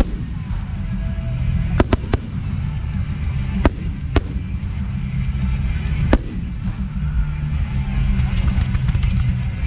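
Aerial fireworks shells bursting in a finale: a cluster of sharp bangs about two seconds in, two more around four seconds, and one near six seconds, over a continuous deep rumble and music.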